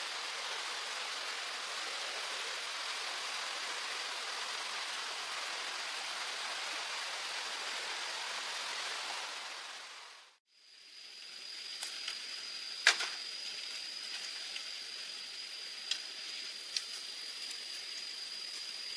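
Steady rushing water that fades out about ten seconds in. After it, a quieter background with a thin, steady high-pitched whine and a few sharp knocks, the loudest about three seconds after the fade.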